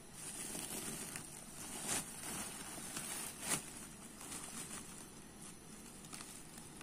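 Rustling and crinkling of a white plastic sack being handled, with two sharper crackles about two and three and a half seconds in.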